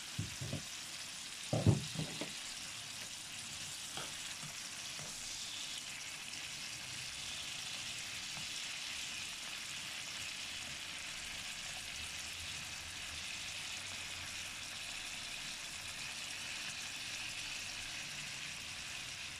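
Capers and caper brine sizzling steadily in a frying pan with browned doves over a raised gas flame. A few light knocks come in the first few seconds, the loudest just under two seconds in.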